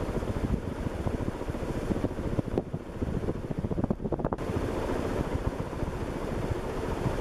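1990 Casablanca Delta II 127 cm ceiling fan running at its top speed of about 210–220 RPM. Its strong downdraft buffets the microphone as a steady, gusty rush of wind.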